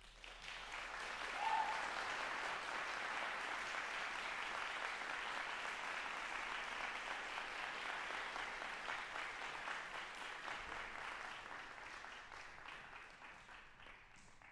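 Audience applauding, starting suddenly, holding steady, then dying away over the last few seconds. A brief cheer rises above the clapping about a second and a half in.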